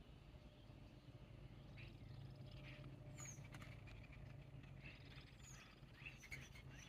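Faint ambience with two short, high, falling chirps from a small bird, about three and five and a half seconds in, and light rustling or pattering in between.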